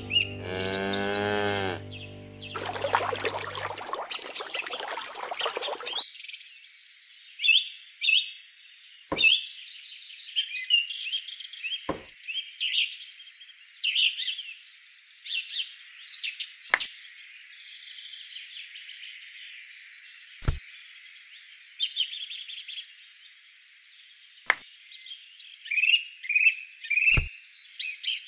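Birds chirping and tweeting in quick high calls, with a sharp click every few seconds. It opens with the tail of a cow's moo, followed by a few seconds of hiss.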